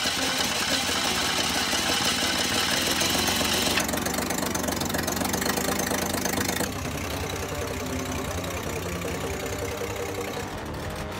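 Old Ford Falcon's engine running steadily, with abrupt changes in the sound about four and seven seconds in, quieter after the second.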